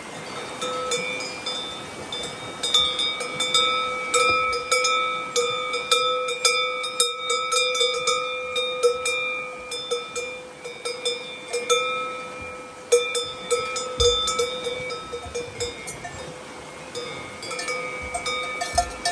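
Cowbells on Swiss cows clanking irregularly as the cows move, several bells ringing on together with sharp strikes every fraction of a second.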